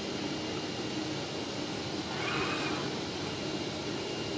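CNC oscillating knife cutting machine running: a steady mechanical hum and hiss, with a brief louder whir about two seconds in as its tool head travels across the gantry.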